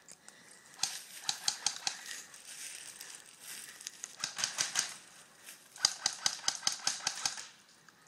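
Airsoft guns firing in three rapid bursts of fast, evenly spaced clicking shots: one about a second in, one in the middle, and the longest near the end.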